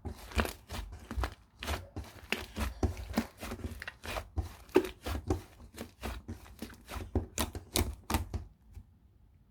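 Soft slime squished and pressed by hand: a quick, uneven run of sticky clicks and small pops that stops about a second before the end.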